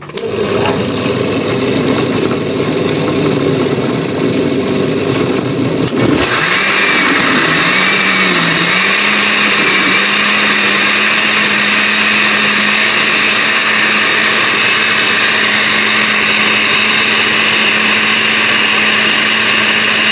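Oster 10-speed blender motor switched on and blending chopped apples into juice, a steady whir. About six seconds in it gets louder, and its pitch dips briefly as the blades work through the fruit before settling into an even hum.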